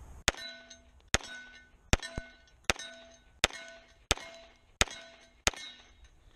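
Canik TP9SFx 9mm pistol fired eight times in a steady string, about three-quarters of a second apart, with 147-grain ammunition. Each shot is followed by a brief ringing clang of a hit steel target.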